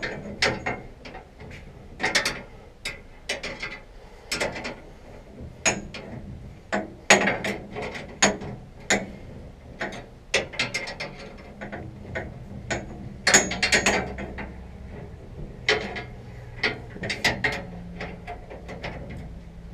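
Hand wrench working bolts loose on a combine's concave grate: a run of irregular, sharp metallic clicks and clanks.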